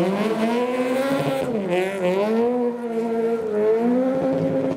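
Peugeot 208 rally car engine under hard throttle on loose gravel. The revs climb, dip about a second and a half in, then climb again and hold high as the car pulls away.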